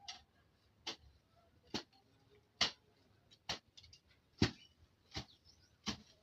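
Steady chopping of a hand weeding tool striking into grass and soil, about one stroke a second, eight strokes in all.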